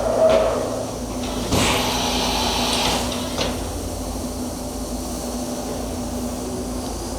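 Automatic tool changer of a Milltronics VM2016 vertical machining center swapping a tool, heard over the machine's steady hum. There is a clunk about a second and a half in, followed by a hiss of about a second and a half and then a click.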